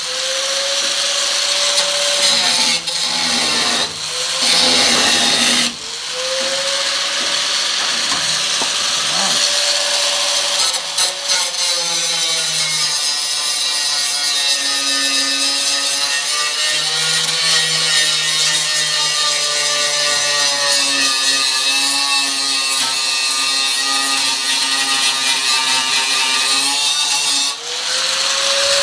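A handheld power grinder working the metal of a car's rear quarter panel, stripping it back. It runs with a high whine over a hiss, is let off and spun up again about six seconds in, and once more near the end.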